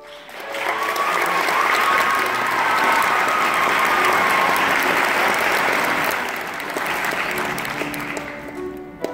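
Concert audience applauding, swelling about half a second in and dying away near the end, as the student string orchestra begins to play under it.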